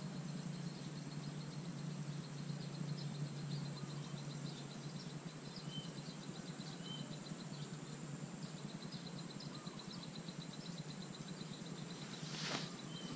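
Rural outdoor ambience: a fast, pulsing high insect trill and a few short bird chirps over a steady low hum. A short rushing noise comes near the end.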